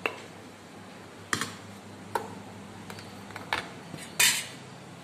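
Metal spoon clinking and scraping against a steel bowl and aluminium idli mould plates while batter is spooned into the moulds: several sharp clinks about a second apart, the loudest a short clatter about four seconds in.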